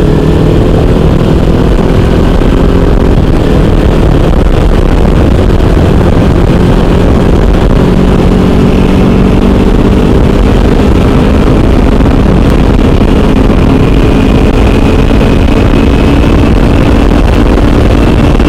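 Motorcycle engine running steadily at cruising speed, its pitch creeping up slightly over the stretch, over a heavy low wind rumble on the microphone.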